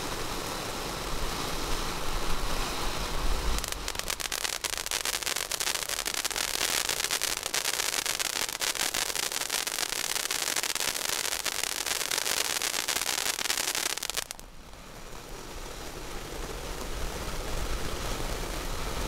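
Bare Knuckle Fighting fountain firework burning: a steady hiss of spraying sparks. From about four seconds in, dense rapid crackling joins it and stops sharply near fifteen seconds, after which the hiss builds back up.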